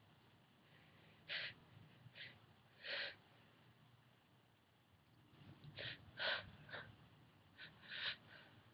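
A woman's short, sharp gasping breaths as she builds up to a pepper-induced sneeze that has not yet come. There are three catches in the first half, then a quicker run of several a few seconds later.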